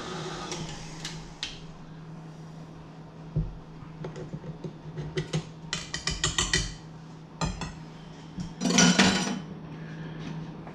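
Metal clinks and rattles from a stand mixer's wire whisk attachment being taken off and knocking against the stainless steel mixer bowl, with a quick run of clinks about two-thirds of the way through. About nine seconds in comes a louder, longer metal rattle as the steel bowl is handled on the mixer base.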